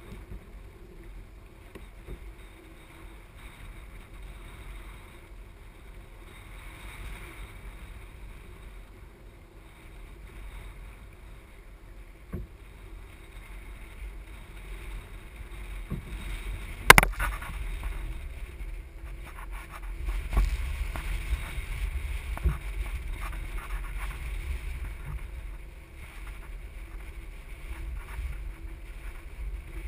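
Water lapping against a kayak hull at sea, with wind on the microphone, heavier in the second half. There is one sharp knock a little past the middle.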